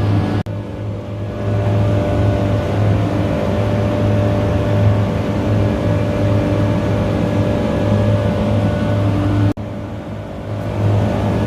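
McQuay screw compressor running steadily with a strong low hum and a whine of several steady tones above it. The sound drops out briefly twice, about half a second in and near the end.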